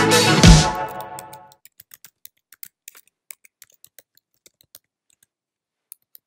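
Electronic music with a heavy beat fades out about a second and a half in. A run of faint, irregular clicks like keyboard typing follows, a few a second.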